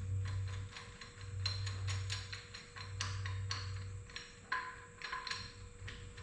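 Irregular sharp metallic clicks and ticks, several a second, from working a two-jaw gear puller on the engine's pulley to draw it off, with a low hum that comes and goes.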